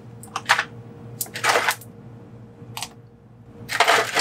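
Ice cubes being knocked out of a plastic ice tray and dropped into a foot spa's basin of water: a series of short clatters and splashes, the busiest near the end, over a faint steady hum.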